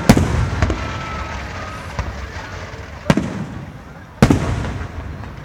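Fireworks display bursts: a string of sharp booms, the loudest right at the start and another about four seconds in, each trailing off in a rumble.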